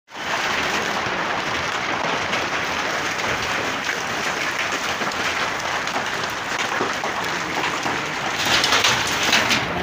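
Heavy rain falling, a dense steady pattering that grows louder and crisper about eight and a half seconds in.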